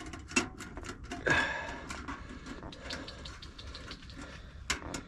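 Freshly lit wood fire of old fence-post pieces crackling in a small metal tent stove, with irregular snaps throughout. A few louder knocks and rustles of handling about half a second, a second and a half, and near the end.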